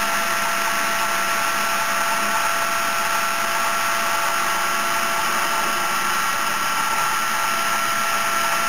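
CNC router spindle running with a steady high whine over a constant hiss, milling wood.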